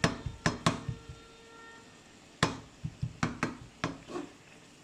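A cooking utensil knocking against a pan while the sauce is mixed: a few quick clacks near the start, then another run of clacks from the middle on.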